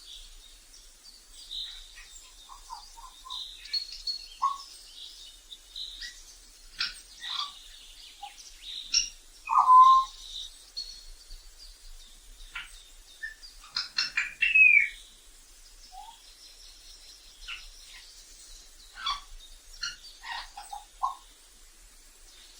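African grey parrot calling: an irregular run of short whistles, chirps and squawks. The loudest call comes about ten seconds in, and a sliding whistle follows around fourteen seconds.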